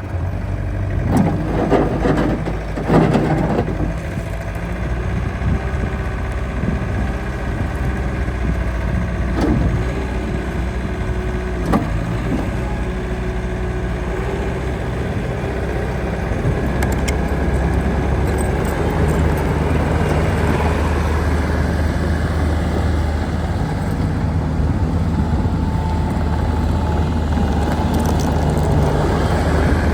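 Bobcat T650 loader's diesel engine running steadily, with a few sharp knocks in the first dozen seconds. It grows louder from about halfway through.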